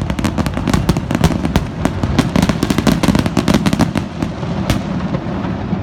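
Fireworks finale: a rapid barrage of shell bursts and crackle, the reports overlapping one another, thinning out near the end.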